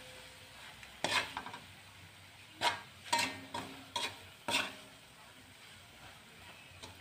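A spatula scraping and stirring bitter gourd and corned beef in a nonstick wok: about six quick scraping strokes in the first five seconds, then only a faint sizzle of the frying food.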